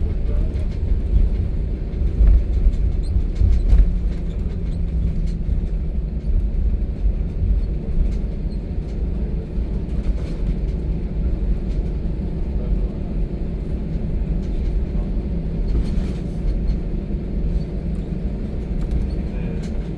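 Airliner taxiing after landing, heard inside the cabin: a steady low rumble from the engines and the wheels rolling over the taxiway, with a few heavier bumps in the first few seconds.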